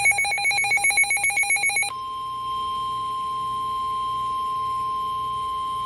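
Emergency alert tones from a NOAA Weather Radio broadcast. A rapid, warbling electronic alert tone stops about two seconds in and gives way to a single steady high tone, the 1050 Hz warning alarm tone that comes before a severe thunderstorm warning message.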